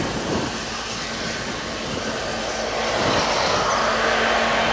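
Ludmilla-type diesel locomotive running under power with a steady low hum as it hauls a long train of empty hopper wagons past. The sound grows louder about three seconds in as the locomotive draws level.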